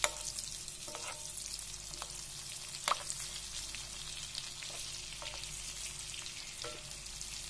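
Red fish fillets sizzling and crackling in a pan of bubbling butter and sunflower oil, the fat being spooned over the fish. A few sharp clicks of the metal basting spoon against the pan, the loudest about three seconds in.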